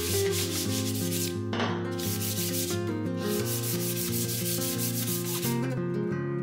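Sandpaper rubbed by hand over the painted metal tubes of a bicycle frame and fork in repeated strokes, taking off the old paint; the rubbing stops near the end. Background music with held notes runs underneath.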